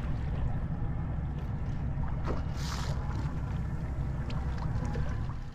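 Boat under way on open water: a steady low motor rumble with water rushing past the hull and wind on the microphone, and a brief splash-like hiss about two and a half seconds in.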